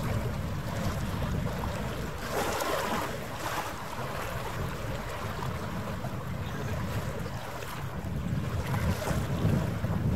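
Wind buffeting the microphone over lapping harbour water, with a short hissy wash a couple of seconds in.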